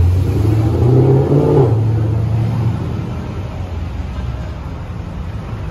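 A car engine accelerating along the street with a deep rumble that rises slightly in pitch, then fades after about three seconds as the car moves away.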